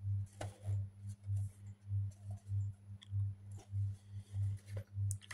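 A low hum that pulses about three times a second, with a few faint clicks.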